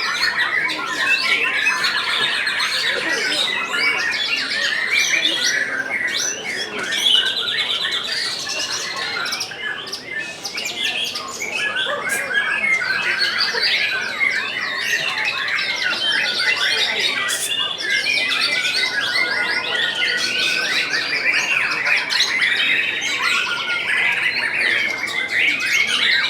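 Many caged white-rumped shamas (murai batu) singing at once: a dense, unbroken chorus of overlapping whistles, trills and chatter.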